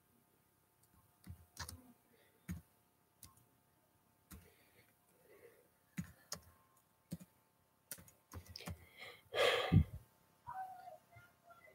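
Scattered clicks and taps of a laptop's keys and casing being handled close to its microphone, with a louder burst of rustling noise about nine and a half seconds in.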